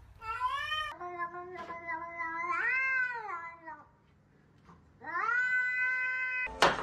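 Cats meowing. A short meow comes first, then two long, drawn-out meows from a grey cat: the first rises and falls in pitch, the second is held steady. A sharp click comes right at the end.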